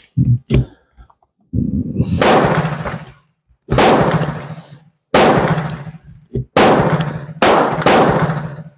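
Gunshots at a shooting range: about six loud shots at irregular intervals a second or so apart, each echoing away over about a second.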